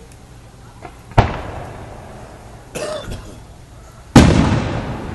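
Fireworks bursting overhead: two loud booms about three seconds apart, the second trailing off in a long rumbling echo, with a softer pop between them.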